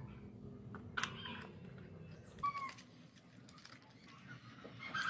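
A few short animal calls in the background: brief pitched cries about one and two and a half seconds in, then a longer call with a falling pitch near the end.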